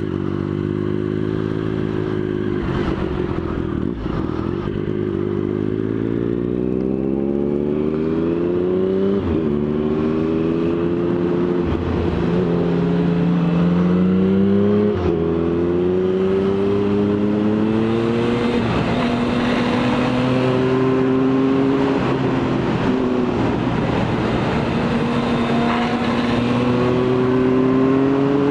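Triumph Speed Triple 1050's three-cylinder engine heard from the rider's seat. The engine note falls for the first few seconds as the bike slows, then rises through the gears, with the pitch stepping down at each of several upshifts.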